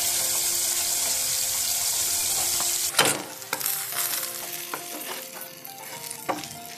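Chicken wings deep-frying in hot oil, a steady loud sizzle. About three seconds in it cuts off to quieter scattered clicks and scrapes of a wooden spatula tossing the fried wings in a pan.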